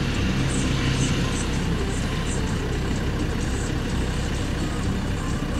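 Off-road 4x4 engines running steadily at low revs as the vehicles crawl through a muddy field.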